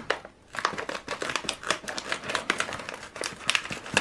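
Resealable pouch of collagen powder being handled and opened by hand: crinkling packaging and a dense run of small irregular clicks, starting about half a second in.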